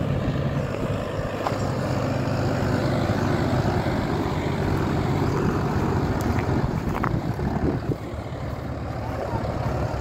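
Mahindra tractor's diesel engine running steadily under heavy load, labouring to tow a loaded trolley through soft, muddy ground and up a slope.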